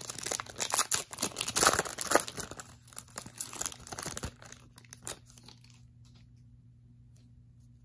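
Crinkly wrapper of a Donruss Optic basketball card pack being torn open and crumpled, a dense run of crackles that stops about five seconds in.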